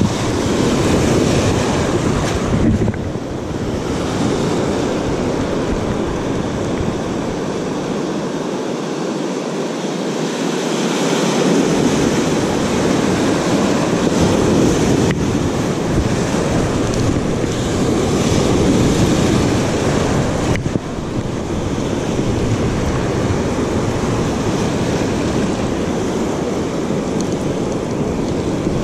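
Ocean surf breaking and washing through the shallows, a steady rushing wash that swells and eases, with wind buffeting the microphone.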